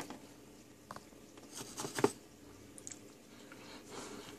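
Soldering tools being handled on a workbench while tinning a soldering iron tip: a few small clicks and rustles, with the sharpest click about two seconds in, over a faint steady hum.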